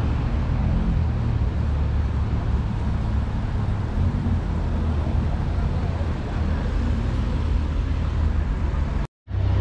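City street ambience: steady traffic noise with a heavy low rumble. The sound drops out for a split second near the end.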